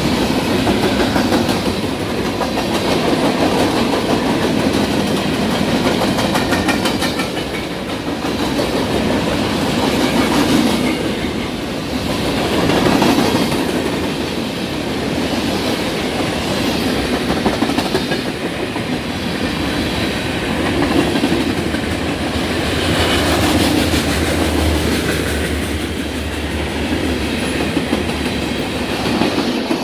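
Loaded CSX rock train of stone hopper cars rolling past close by, a loud, steady rumble and rattle of wheels on the rails that swells and eases every few seconds as the cars go by.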